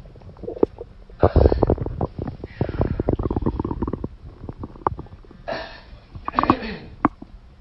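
A person's stomach growling and gurgling in irregular runs of rapid pops and rumbles, loudest a little over a second in and again around six seconds in: bowel gurgling from holding in a bowel movement.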